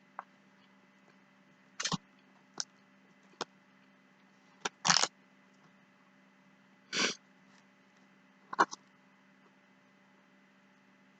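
A person eating: about eight short, sharp eating noises spaced unevenly, the loudest about five seconds in and near the end, over a low steady electrical hum.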